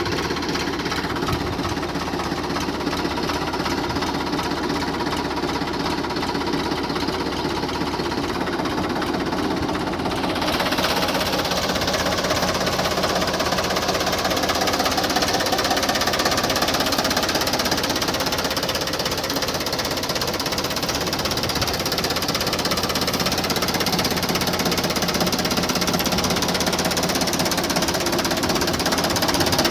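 Small engine of a homemade mini tractor running steadily with a rapid knocking beat as it drives along; it gets a little louder and brighter about ten seconds in.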